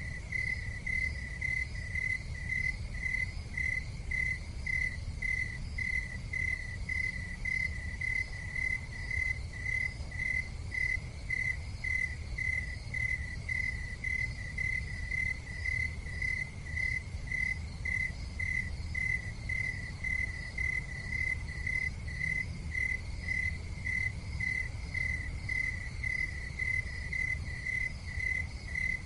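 Crickets chirping in a steady, even rhythm of roughly one to two chirps a second, over a low, steady rumble.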